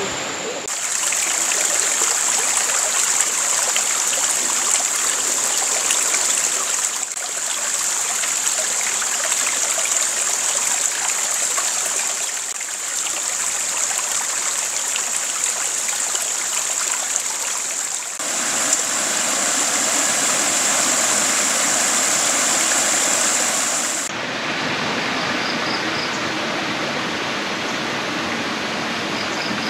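Steady rushing of flowing river water. Its tone and level change abruptly every few seconds from one shot to the next.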